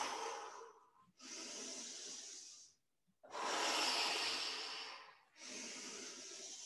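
A woman taking slow, deep breaths through the mouth, four long breaths in and out with short pauses between, every other one louder.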